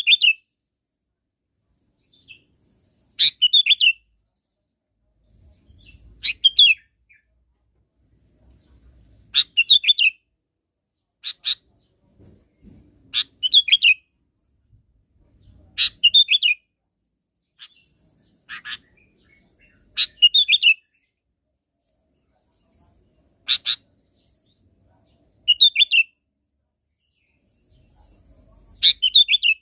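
Sooty-headed bulbul singing short, bubbly chirping phrases, each under a second, repeated about every two to three seconds.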